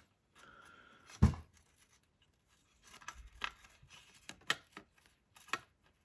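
Small bolts on a 3D printer motherboard mount being unscrewed with a hand tool: faint scraping and squeaking, one sharp knock a little over a second in, then a run of small scattered clicks.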